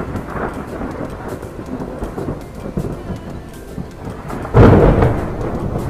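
Thunderstorm sound effect: a steady thunder rumble, then a sudden loud thunderclap about four and a half seconds in that rolls away over the next second.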